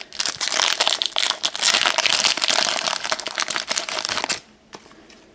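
Trading-card pack wrapper crinkling as it is torn open: dense, crackling rustle for about four seconds that stops fairly suddenly, followed by a few faint clicks.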